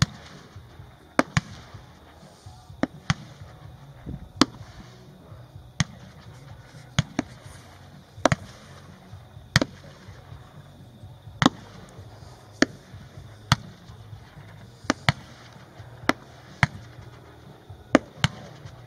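A 30 mm, 19-shot fireworks cake firing white strobing falling-leaves shots: a sharp bang roughly every second, sometimes two in quick succession.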